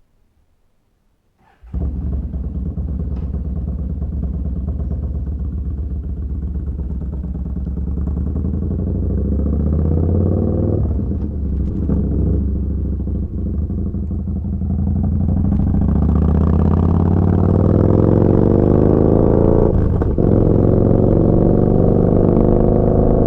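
Yamaha Bolt's air-cooled V-twin running through a Vance & Hines slip-on exhaust, cutting in suddenly about two seconds in, then revving up with a rising pitch and brief breaks between pulls, like gear changes.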